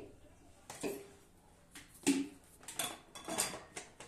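About half a dozen short clinks and knocks of hard objects, like dishes or utensils being handled, with the loudest about two seconds in.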